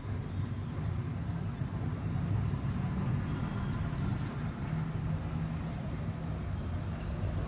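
Steady low rumble of city traffic, with a few short high chirps scattered over it.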